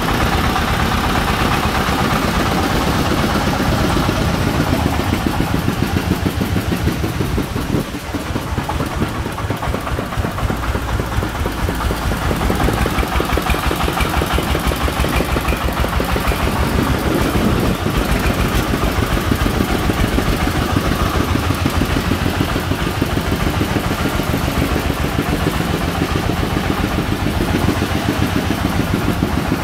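Single-cylinder diesel engine of a công nông farm truck chugging steadily with an even, rapid knock as it pulls a load of bricks, briefly dropping in level about eight seconds in.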